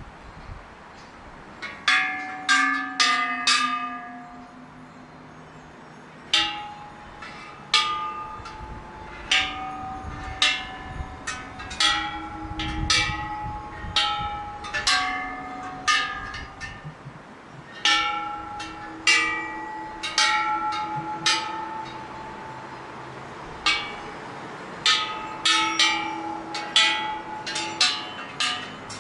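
Thai temple bells struck one after another in irregular clusters: dozens of clangs at several different pitches, each ringing on for about a second. A low rumble swells and fades about halfway through.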